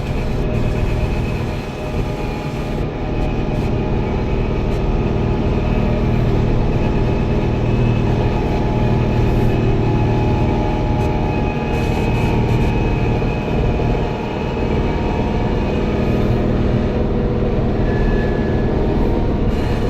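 Farm tractor's diesel engine running steadily under load while driving a rotary tiller.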